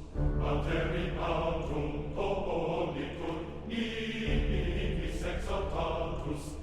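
Background music: choir-like chanting voices over a deep held bass note.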